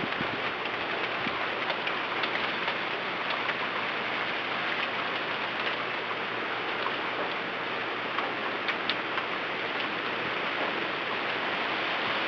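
Steady wind-driven rain: an even hiss with scattered faint tapping drops.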